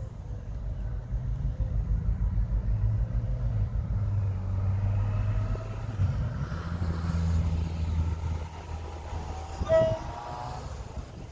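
Class 60 diesel locomotive hauling a loaded steel train, its engine running with a steady low hum whose note drops slightly partway through. Near the end the locomotive gives a short horn toot, the loudest sound.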